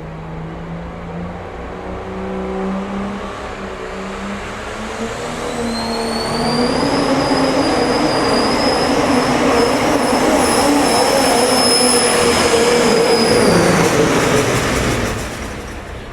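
Pulling tractor's engine running hard under load, its pitch climbing over the first few seconds, with a high whistle coming in about five seconds in. The sound falls away near the end.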